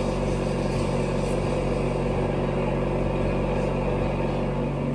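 A motor hum, steady and unchanging, with a low pitched drone throughout.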